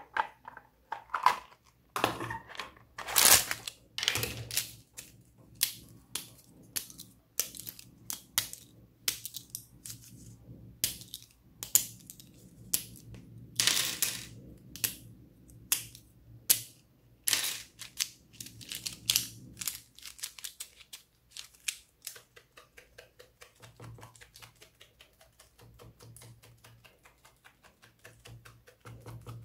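Sharp plastic clicks and clacks from handling a plastic toy case and a bundle of felt-tip pens. In the last third this gives way to a quick run of lighter ticks, several a second, as the bundled pen tips are pressed again and again into the slime.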